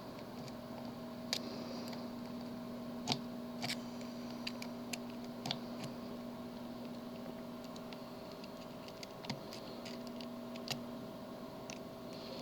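Small, sharp metallic clicks and ticks, scattered unevenly: a pick pressing down the pins of a tubular lock while tension is held, searching for the binding pin. A faint steady hum runs underneath.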